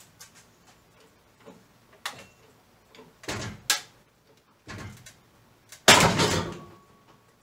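Scattered knocks and clanks, then a heavy bang nearly six seconds in that dies away over about half a second.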